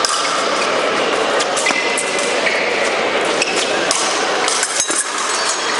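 Scattered clinks and taps of steel épée blades over the steady, echoing din of a busy fencing hall.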